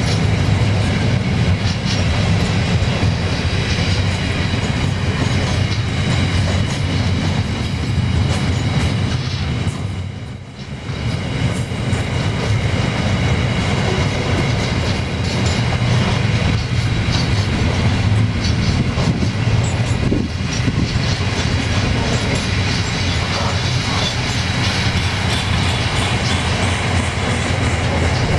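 Freight wagons loaded with steel coils rolling past close by, a loud steady rumble of wheels on the rails. The noise dips briefly about ten seconds in, then comes back.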